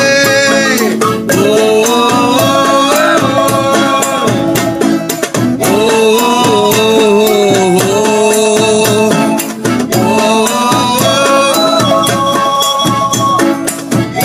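Live acoustic band playing an instrumental passage between sung verses: accordion, acoustic guitar, a wooden bar xylophone with gourd resonators and hand drums keep a steady beat, while a wavering lead melody bends across the top.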